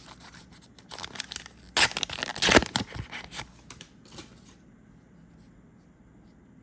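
Foil trading-card booster pack being torn open and its wrapper crinkled, a run of rough ripping and rustling that is loudest about two to three seconds in and stops after about four and a half seconds.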